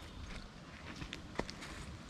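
Footsteps crunching on leaf-littered dirt, a few scattered clicks and light crunches with one sharper snap near the middle, over a steady low rumble of wind on the microphone.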